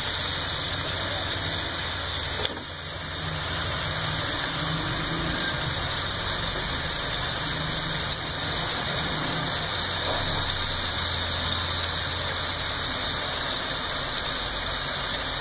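Beef pieces frying in hot oil with onions in a steel pot, a steady sizzle with a low hum beneath it.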